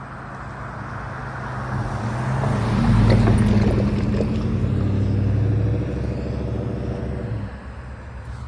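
Norfolk Southern freight train's diesel locomotive passing: a deep engine note and rumble swell up and peak about three seconds in. The engine note drops away about seven and a half seconds in, leaving a lower rumble.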